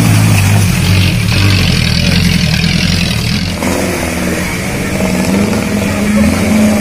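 An off-road 4x4's engine revs under load, rising in pitch near the end. A hiss runs for a couple of seconds in the middle.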